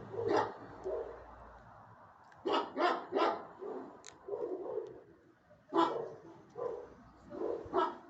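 A dog barking in short separate barks: one, then a quick run of three, then two more, with softer yips between them.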